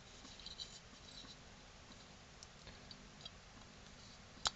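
Faint small clicks and scratches of fingers handling a metal tuner module and a stiff coax cable as the centre wire is pushed into the tuner, with one sharper click near the end.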